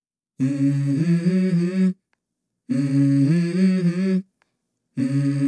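Background music: a wordless vocal line, three phrases of about a second and a half each, separated by short silences.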